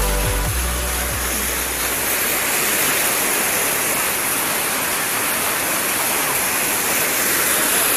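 A swollen, muddy river in flood, rushing fast in churning rapids as a steady, unbroken rush of water. The bass of electronic music fades out in the first two seconds.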